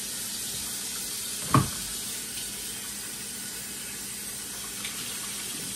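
Kitchen faucet running steadily into the sink during dishwashing, with one short, loud clunk about a second and a half in.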